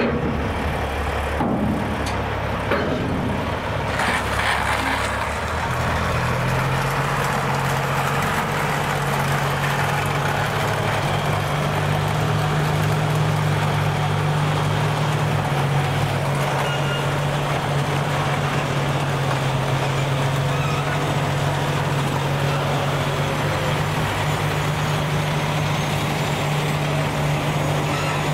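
Heavy semi truck's diesel engine pulling a boxcar on a multi-axle lowboy trailer, a steady engine note that steps up about six seconds in. A few knocks in the first few seconds as the trailer's wheels roll over the railroad crossing.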